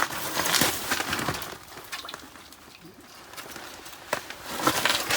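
Irregular rustling and scuffing noises of a hooked fish being pulled up through the ice hole and handled. The noise is loudest in the first second or so and again about four seconds in.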